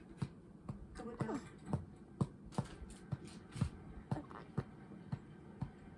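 Sparse percussive beat, sharp knocks about two a second, with a brief falling sound about a second in, leading into background music.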